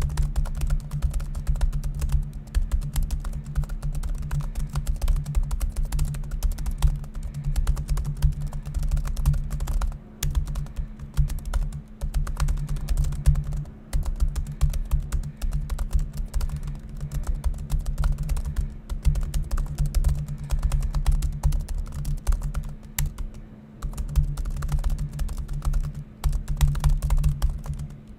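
Fast, continuous touch typing on the ASUS ZenBook Flip S laptop's shallow 1 mm-travel keyboard: a dense stream of key clicks with a couple of brief pauses, over a steady low hum.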